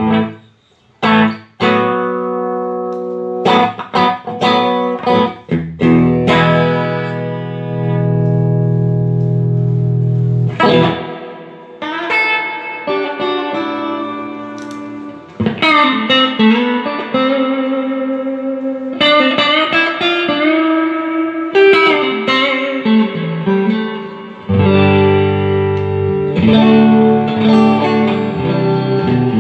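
Electric guitar played through an early-2000s Fender Hot Rod Deluxe tube amp: short separate chord hits for the first few seconds, then ringing chords and changing single-note lines, with a long held chord near the end. The amp is being sound-tested after a repair for hum, buzz and loss of power.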